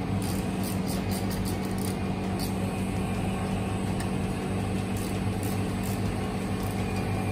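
Hand ratchet and Allen-bit driver clicking as the bolts on a planetary mixer's motor mounting plate are loosened: a quick run of light clicks in the first couple of seconds and a few more later, over a steady low hum.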